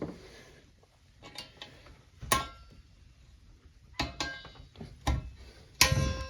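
Hand tools and steel exhaust springs on a dirt bike clinking and knocking, metal on metal. There are about seven separate sharp clanks, some leaving a brief ringing tone, and the loudest comes near the end.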